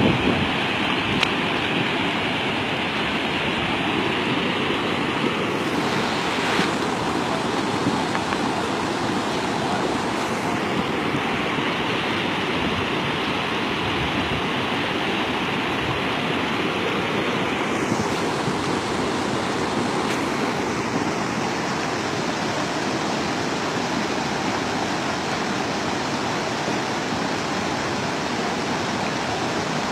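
Steady rush of a river in flood, its fast, muddy current running high.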